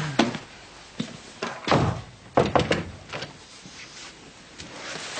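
Room door being opened and shut: a click at the start, a heavy thud just under two seconds in, then a quick run of sharp knocks.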